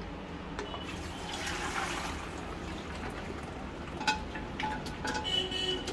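Boiled mutton trotter broth being poured from a pressure cooker through a steel mesh strainer into a pot: a running pour that is heaviest a second or two in. A few light metal clinks of the cooker and strainer follow near the end.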